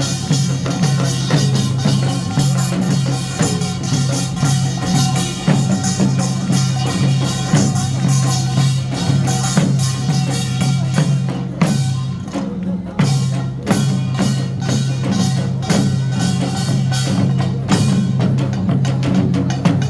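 Korean nongak (pungmul) percussion ensemble playing a fast, driving rhythm, with dense gong and drum strikes over a steady low ring. The metallic clatter thins out briefly about twelve seconds in, then picks up again.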